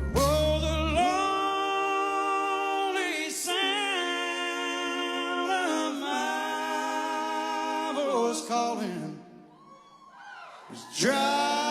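Unaccompanied singing voice holding long, drawn-out notes with vibrato, with a short soft break near the end before the next phrase starts.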